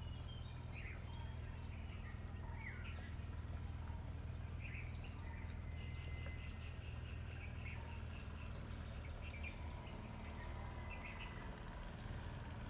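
Wild birds calling: scattered short chirps every second or two, with a quick run of repeated notes about halfway through, over a steady low hum.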